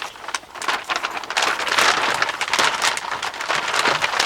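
Packaging being handled and crinkled: a dense run of crackling, rustling clicks, loudest in the middle.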